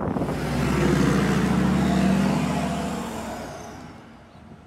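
A pickup truck towing a flatbed trailer loaded with hay bales drives past. Its engine and tyre noise swell to a peak about two seconds in, then fade steadily away.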